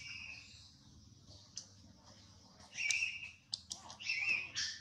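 Baby long-tailed macaque giving short high-pitched squeaks: one at the start, then two louder ones about three and four seconds in, with a few sharp clicks between.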